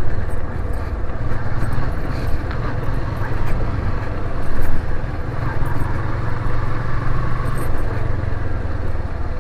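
Motorcycle engine running steadily at low speed while the bike rides along a rough dirt lane, briefly louder about halfway through.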